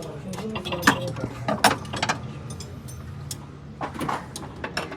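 Metal tools and engine parts clinking and knocking in irregular sharp strikes, the loudest two close together about a second in, over a faint steady low hum.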